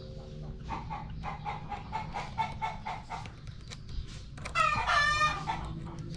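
Chickens: a run of quick repeated clucks, then a rooster crows once, loudly, about four and a half seconds in.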